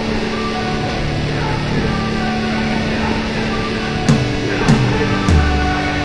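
Background rock music with a held, sustained guitar sound; drum hits and a bass line come in about four seconds in.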